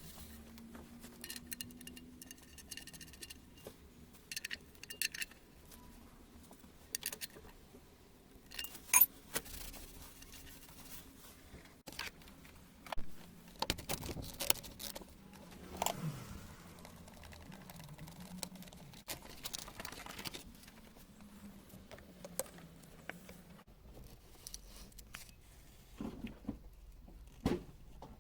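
Intermittent clinks, taps and jingling rattles of small hard objects being handled, scattered irregularly, some louder than others.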